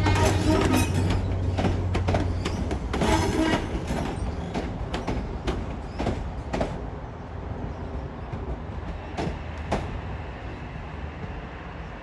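Sydney Trains Tangara double-deck electric train passing and moving away, its wheels clacking over the rail joints and points with a low steady hum underneath. The clacks thin out and the sound fades over the last few seconds as the train goes.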